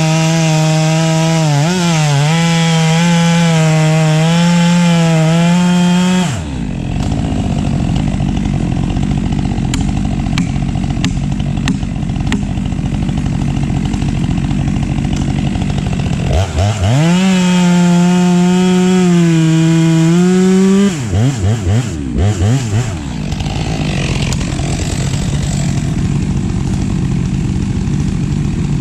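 STIHL MS 462 two-stroke chainsaw running at full throttle while cutting wood for about six seconds, then dropping to idle. It revs up again for about four seconds, is blipped on and off a few times, and settles back to idle.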